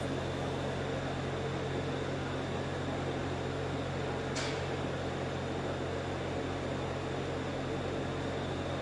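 Steady mechanical hum of poultry-house equipment running, with one short high chirp a little before the middle.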